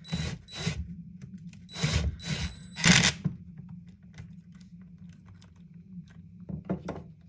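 Hand-work noises on a chainsaw's parts: a few scraping, rustling bursts of plastic and metal being handled in the first three seconds, the loudest about three seconds in, then scattered light clicks, over a steady low hum.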